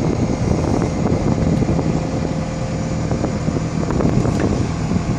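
John Deere 310K EP backhoe's diesel engine idling steadily while warming up after a cold start in freezing weather.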